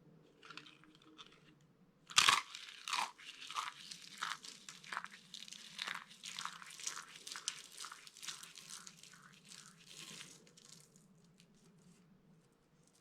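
Dry bar soap being crushed, cracking and crunching. It opens with a loud crack about two seconds in, then gives a rapid run of crisp snaps that thins out and stops near the end.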